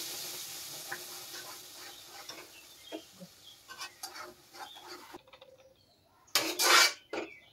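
Spices sizzling in hot oil in a kadhai and dying down over the first few seconds, with light clinks of a steel ladle stirring. Near the end comes a short loud rush as gravy is scraped from a steel mixer jar into the pan, and a smaller one just after.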